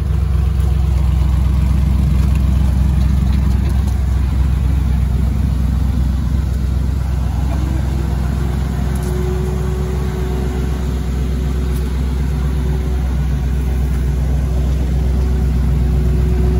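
1976 Chevrolet K5 Blazer's engine idling steadily. About halfway through, a steady whine comes in with a slight rise and holds.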